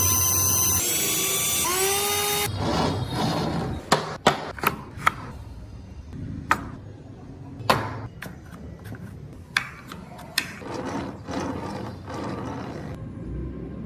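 A small power tool, drill-like, runs with a high whine and shifts pitch before it cuts out about two and a half seconds in. Then come a series of sharp taps and knocks on wood, and a rough scraping stretch near the end.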